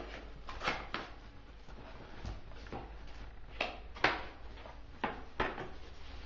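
Cardboard toy box with a clear plastic window being handled: a string of sharp taps, knocks and crackles from the cardboard and plastic. The loudest comes about four seconds in.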